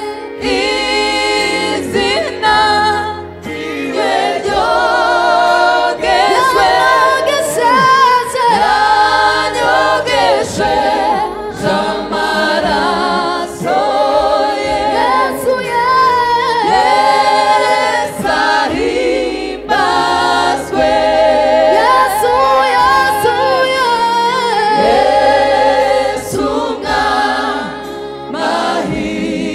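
Gospel choir singing, several voices together with vibrato over a steady low part.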